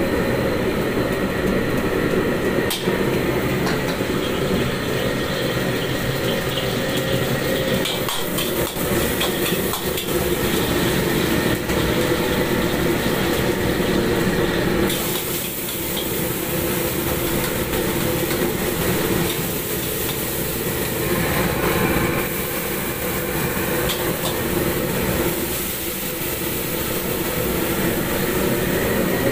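Stir-frying in a carbon-steel wok on a restaurant gas wok burner: the burner runs with a steady rush while the metal spatula clatters and scrapes against the wok. About halfway through, a higher sizzling hiss starts as food goes into the hot oil.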